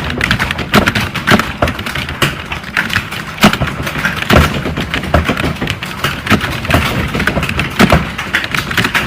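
Continuous fast typing on a keyboard: rapid, irregular key clicks, several a second, with an occasional louder keystroke.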